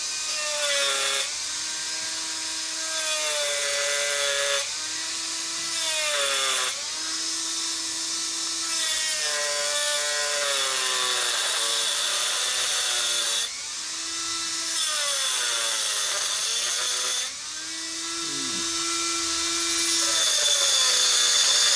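Dremel rotary tool with a small cut-off disc scoring a line along the belly of a wooden lure: a steady motor whine over the hiss of the disc cutting wood. The whine's pitch sags and recovers every couple of seconds, and the loudness drops briefly about 13 and 17 seconds in.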